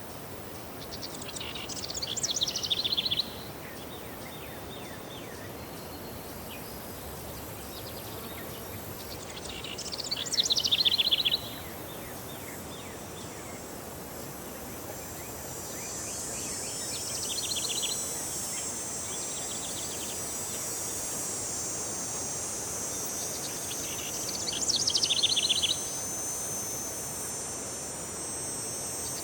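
A songbird sings the same short phrase of rapid notes falling in pitch three times, several seconds apart, over steady outdoor background noise. A steady high hiss comes in about halfway through.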